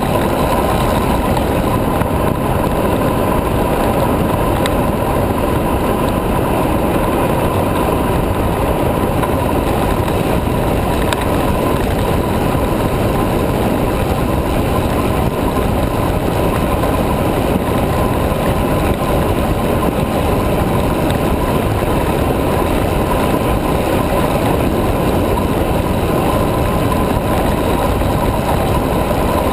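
Steady wind rush on the microphone with tyre noise on asphalt, from a carbon high-racer recumbent bicycle descending at speed.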